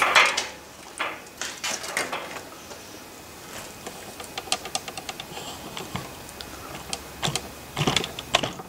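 Steel jig parts clinking and scraping against a steel can as they are moved about in it. There is a clatter at the start, a few knocks, a run of light quick ticks in the middle, and another clatter near the end.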